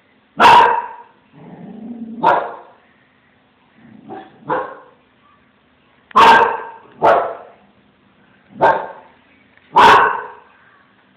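Small Münsterländer dog barking at a cat: about eight short barks at irregular intervals, some in quick pairs, with a lower, drawn-out sound leading into the second bark.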